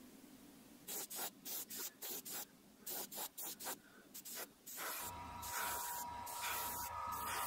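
Airbrush spraying paint onto a wooden crankbait lure. First comes a run of short hissing bursts as the trigger is pulsed, then from about five seconds in a continuous spray, with a low hum and a steady whine underneath.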